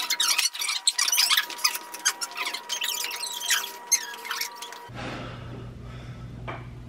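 Dense squeaks and clicks over a steady high beep, cutting off abruptly about five seconds in to a quiet room with a low electrical hum.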